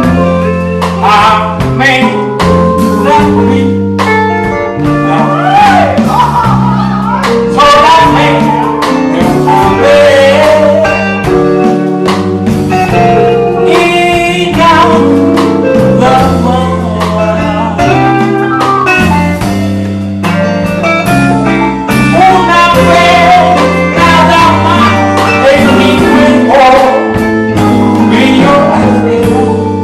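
A live band playing a loud funk-style groove, with a bass line, drum kit and guitar and a sliding lead melody on top.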